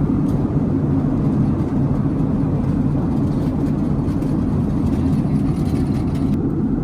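Steady low roar of a Boeing 747-8 airliner cabin in cruise, engine and airflow noise heard from a seat inside, with a few faint light clicks near the end.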